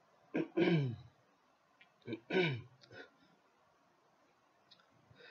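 A man clearing his throat twice, two short voiced sounds falling in pitch, about two seconds apart.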